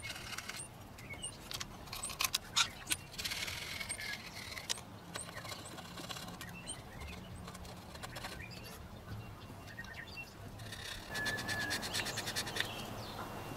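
Utility-knife blade scraping old gasket residue off the deck of a Toyota 1KZ-TE diesel engine block in short, repeated scraping strokes, busiest near the end. A few faint bird chirps are heard in the first half.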